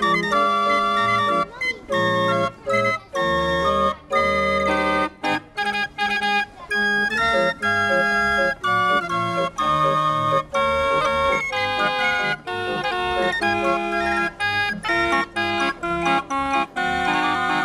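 A 45-key Bruns trumpet organ, a hand-cranked street organ, playing a medley: a pipe melody over bass notes, with many short breaks between the notes.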